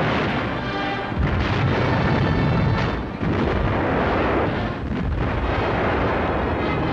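Depth charges exploding in the sea: a run of heavy, overlapping booms and rumble, stepping up louder about a second in, with music underneath.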